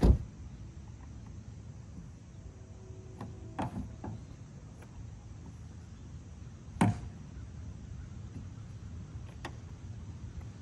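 A car door shutting with a thump, then a few lighter knocks and a second loud knock about seven seconds in as a kayak is pushed and shifted on the SUV's roof rack.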